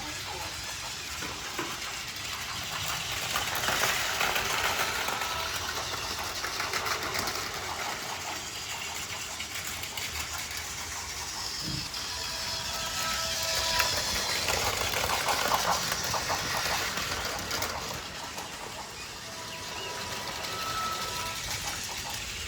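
Battery-powered Plarail toy trains running on plastic track: small motors whirring with a dense clicking clatter of wheels over the track, getting louder twice as the trains pass close.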